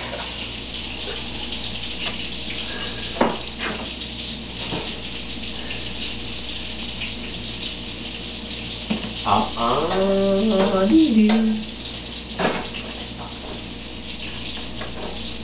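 Water running steadily from a kitchen tap into a sink, with a few short knocks and a child's brief vocalising about nine to eleven seconds in.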